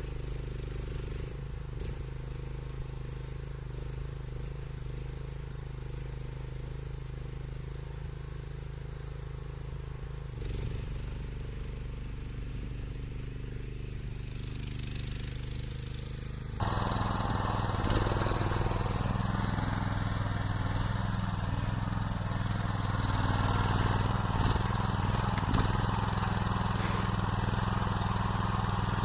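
Small engine of a homemade hydraulic skid steer loader running steadily. About seventeen seconds in it gets suddenly louder and harsher, with a high whine added.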